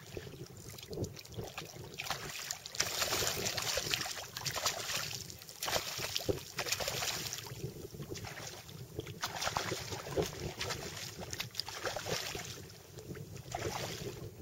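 Wind buffeting the microphone, a steady low rumble, with bursts of hissing water and wind noise that swell and fade about five times.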